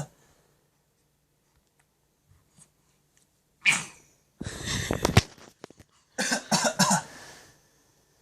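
A baby's fake coughs: after a few seconds of quiet, a single short cough, then a longer rough one, then a quick run of short coughs.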